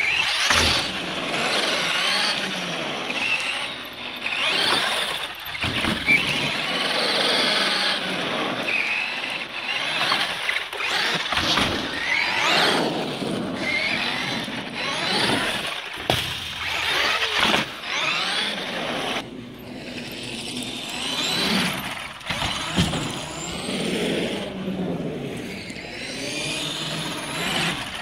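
Traxxas X-Maxx electric RC monster truck: its brushless motor and drivetrain whine up and down in pitch as it is repeatedly throttled and let off. Tyres rush on asphalt, and a few sudden thuds come as it lands from ramp jumps.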